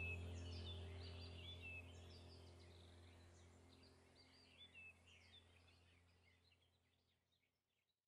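Birds chirping over a low steady hum, the whole background track fading out evenly until it is gone by the end.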